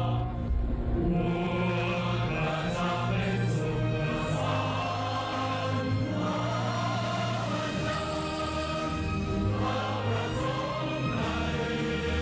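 Choral music: a choir singing slow, held notes over instrumental accompaniment with a steady low bass line.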